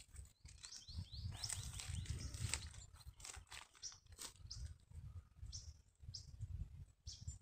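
Dry weeds crackling and rustling as someone walks through them, over a low rumble, with a few short, quick bird chirps: a cluster about a second in and single ones later on.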